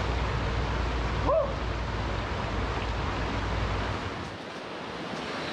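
A swift river running high after heavy rain, a steady rush of water. Wind rumble on the microphone drops away about four seconds in. A brief rising-and-falling cry sounds about a second in.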